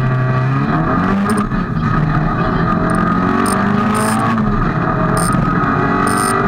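Fiat Cinquecento Group A rally car's engine heard from inside the cabin, accelerating hard from the stage start: the pitch climbs, drops back at an upshift about a second and a half in, and climbs again. A few short sharp ticks sound now and then.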